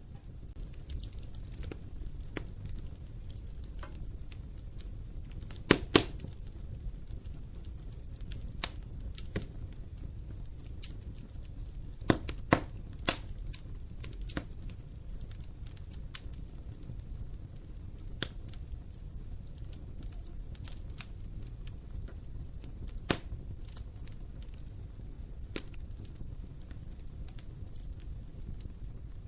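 Wood fire burning in an open fireplace: a steady low rumble of flames with scattered crackles and a few sharp pops. The loudest pops come as a pair about six seconds in, three around twelve to thirteen seconds in, and one about twenty-three seconds in.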